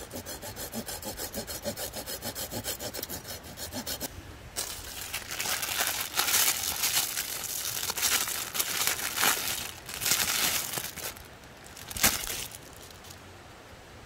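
Folding hand saw cutting through a dry, weathered branch: quick, even strokes for about four seconds, then louder, slower strokes, with one sharp crack near the end.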